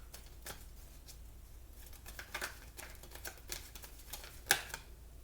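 Tarot cards being handled: scattered light clicks and taps of the cards, with one sharper snap about four and a half seconds in, over a low steady room hum.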